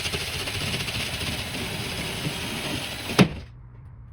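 Cordless drill with a 6-1/4 inch bi-metal hole saw running steadily, then stopping suddenly after a sharp knock about three seconds in.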